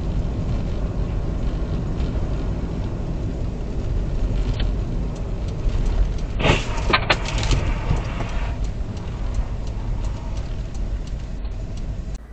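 Steady low rumble of a car driving on a slushy snow-covered road, heard from inside the cabin. About six seconds in comes a short burst of clattering knocks, the loudest sound here.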